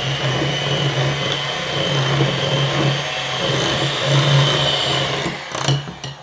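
Electric hand mixer running steadily at constant speed, its beaters working a thick butter, peanut butter and egg batter in a glass bowl, then switched off near the end.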